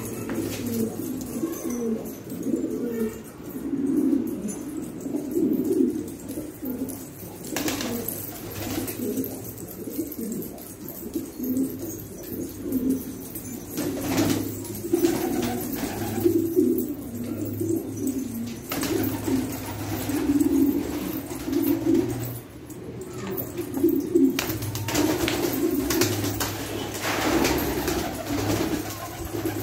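Several domestic pigeons cooing continuously, overlapping low warbling coos, with brief flutters of wings now and then.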